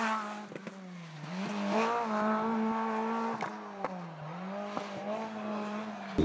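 Renault Clio RS rally car's four-cylinder engine running hard at high revs on a special stage. The revs dip briefly twice and climb straight back, with a few sharp clicks along the way.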